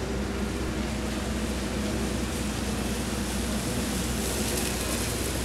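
A Nissan Titan pickup truck approaching slowly on a wet road, its tyres hissing on the wet pavement, the hiss growing louder near the end, over a steady low hum.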